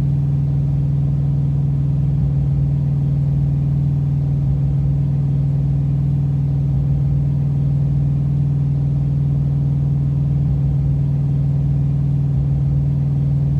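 A steady, unchanging low hum, like a motor or machine running, with no other events.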